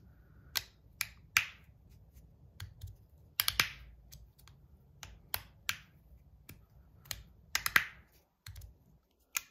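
Magnetic fidget slider worked back and forth in the hand, its plates snapping into place with sharp clicks. About a dozen clicks come at irregular intervals, some in quick pairs.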